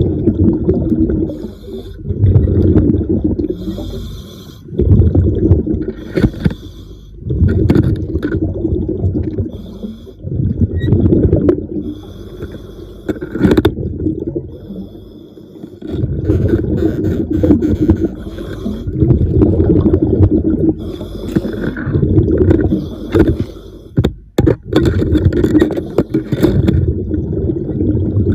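A diver breathing underwater: exhaled bubbles rumble and gurgle in repeated surges every few seconds, between hissing inhalations.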